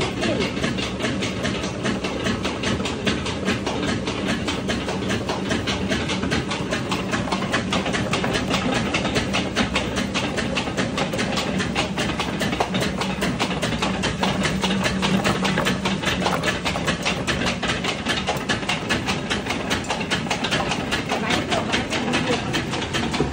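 Machinery of a mustard-seed oil mill running: a steady, loud mechanical din with a rapid, continuous clatter.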